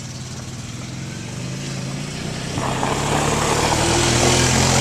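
A vehicle engine running steadily, getting louder from about halfway through.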